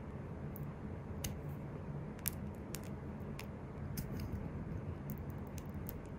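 Small, sharp clicks and taps, scattered and irregular, as a wooden orange stick and fingertips press and nudge rhinestones and metal studs set on a long gel nail. A steady low hum runs underneath.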